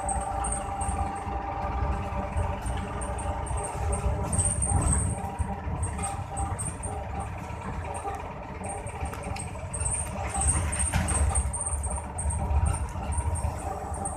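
Engine and road rumble of a moving vehicle heard from on board, a steady low rumble that swells and eases.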